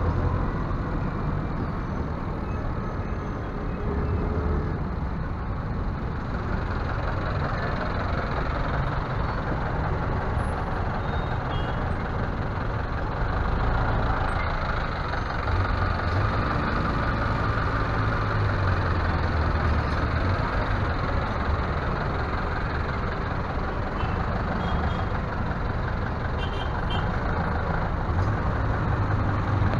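Motor vehicle engine running with road noise: a steady low rumble that rises and falls slightly with the engine.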